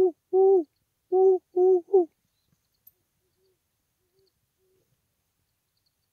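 Five loud hoots in the rhythm of a barred owl's call, packed into about two seconds. A few faint answering hoots from a distant barred owl follow.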